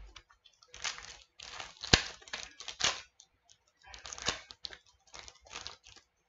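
Trading-card pack wrappers being torn open and crinkled in several short bursts, with a sharp click about two seconds in.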